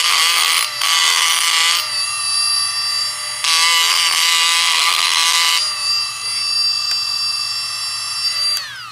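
Dremel rotary tool running at high speed with a steady high whine, grinding material off a piston in three bursts to bring its weight into balance with the others. Shortly before the end it is switched off and the whine falls in pitch as it spins down.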